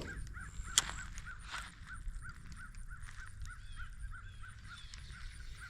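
A bird calling a steady series of short, rising-and-falling notes, about five a second, with a single sharp tap about a second in, the weighted hook pitched under the dock striking a barrel.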